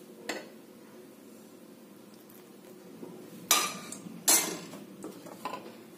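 Metal spoon or ladle knocking against a stainless steel mixing bowl: a light tap, then two louder clinks under a second apart, with a few faint ticks after.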